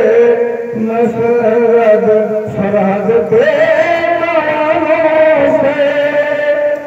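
A man singing a Hindi film song into a microphone, amplified, holding long drawn-out notes with no clear words; the pitch steps up about three seconds in.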